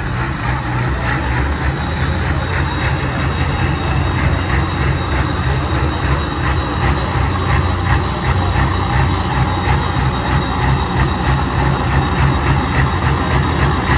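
Engine of a Ford pulling tractor running steadily and loud.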